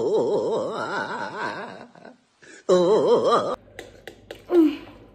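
A man laughing in a high, rapidly wavering voice, in a long run that fades about two seconds in and a second short burst around three seconds. After that, scattered small clicks and smacks of people eating noodles.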